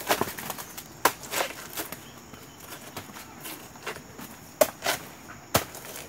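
Dry banana leaves and pseudostem sheaths crackling and snapping over light rustling. There are two clusters of sharp cracks, one about a second in and another near the end.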